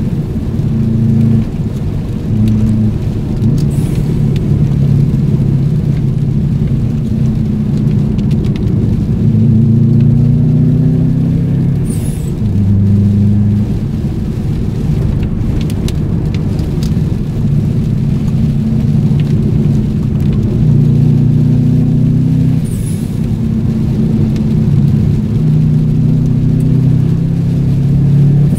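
Car engine running while driving, heard from inside the cabin, its note rising and falling as the engine speed changes.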